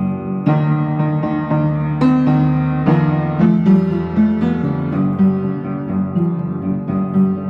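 Upright piano being played, a steady flow of chords and single notes struck several times a second.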